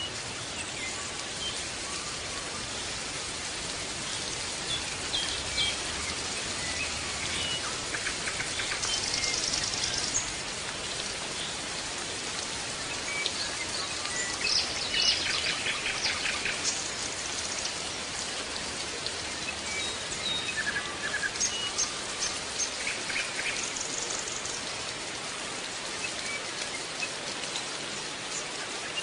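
Birds chirping and trilling in short, scattered bursts over a steady hiss.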